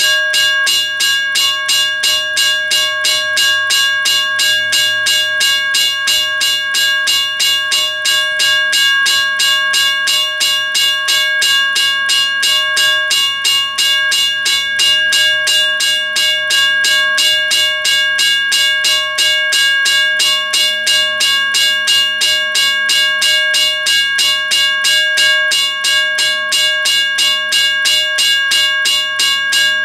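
WRRS (Western Railroad Supply Co.) 1203 mechanical railroad crossing bell ringing continuously. A fast, even run of strokes, with the bell's tones ringing on between them.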